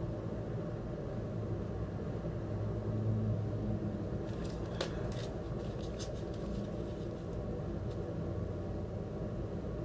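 A sealed, shrink-wrapped vinyl record sleeve being handled and turned over: the plastic wrap crinkles and crackles in a run of short clicks from about four seconds in to near the end. Under it is a steady low rumble of room noise.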